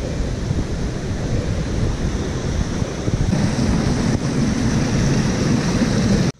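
Loud steady rushing noise, strongest in the low end: wind buffeting the microphone over a small stream's water running over rocks. It cuts off suddenly near the end.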